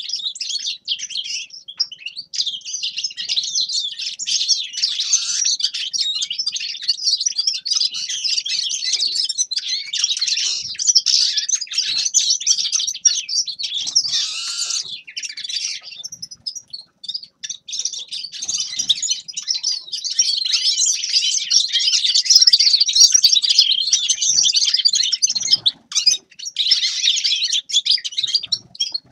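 Grey-headed goldfinch singing a fast, continuous twittering song, breaking off for a moment about halfway through.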